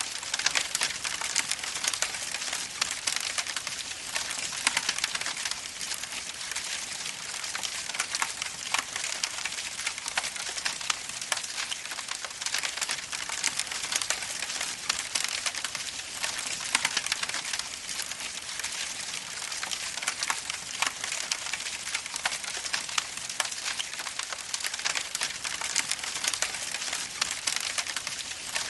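Rain falling steadily: a dense, even patter of many small drop ticks with no let-up.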